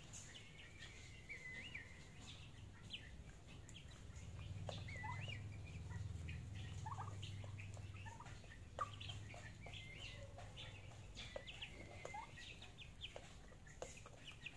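Young turkeys peeping and chirping as they feed, with many short high calls that slide up and down in pitch, a few sharp clicks, and a low rumble through the middle.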